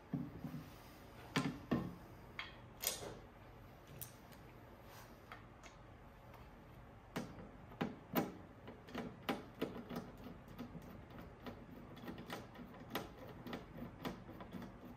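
Irregular clicks, taps and light knocks of hands and tools handling the parts of a cassette deck being put back together. A few louder knocks come in the first three seconds and around eight seconds, then a run of lighter ticks.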